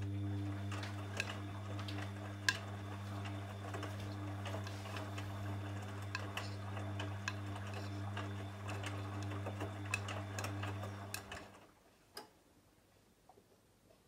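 Bosch VarioPerfect WAQ283S0 front-loading washing machine turning its drum: a steady motor hum with light ticks and clicks as the wet load tumbles. The drum stops about 11 seconds in.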